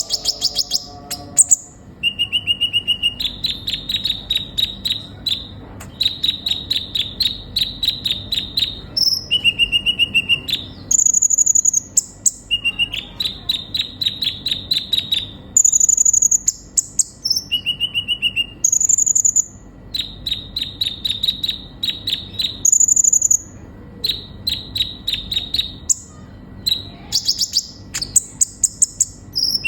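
Kolibri ninja sunbird singing: repeated phrases of rapid ticking trills, mixed with short steady notes and thin high whistles, each phrase broken by brief pauses.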